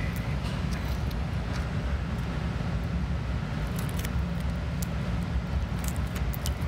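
Small pebbles of broken tempered glass clinking a few times as a gloved hand handles them, mostly in the second half. A steady low rumble runs underneath.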